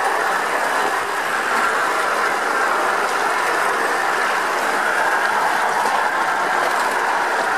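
Wheels of a hand-pushed railway trolley (a Manila 'train track taxi') rolling along steel rails: a steady running noise that does not let up.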